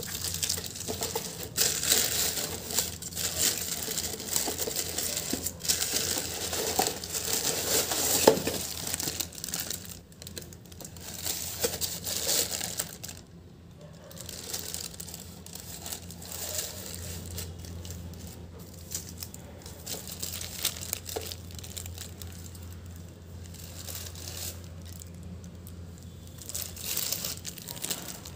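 Thin plastic bag crinkling and rustling as it is handled around a toilet brush holder during unwrapping. The crinkling is busiest and loudest in the first ten seconds, then softer and more scattered.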